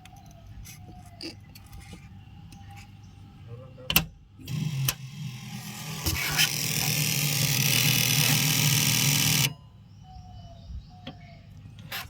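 A sharp click, then a 125 kVA generator's starter cranking for about five seconds with a loud steady whirr, stopping abruptly with the engine not running on.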